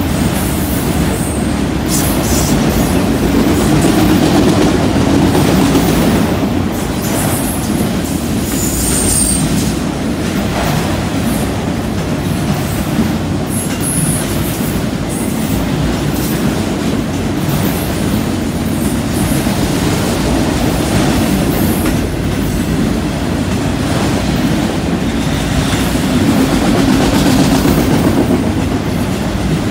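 Freight train of autorack cars rolling past at trackside: a steady rumble of steel wheels on rail with clickety-clack over the rail joints and a few brief high-pitched wheel squeals.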